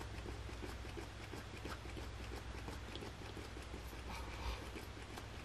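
Faint, irregular small plastic clicks and taps of fingers working at the cap and nozzle of a pump spray bottle, trying to get it open, over a low steady hum.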